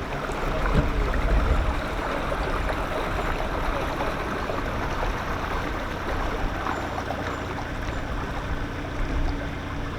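Water rushing and gurgling steadily with a low rumble, typical of water running through the open paddles of a canal lock.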